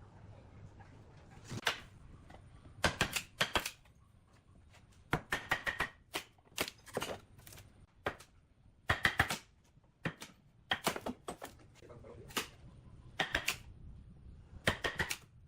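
Hand tools tapping and knocking on wood in short rapid clusters of sharp clicks, with a cluster about every second or so.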